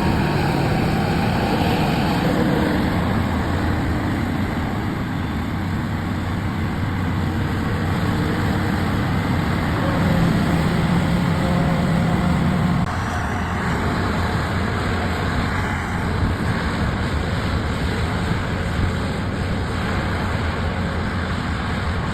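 Steady vehicle noise: a low engine hum with road noise, dropping slightly about 13 seconds in.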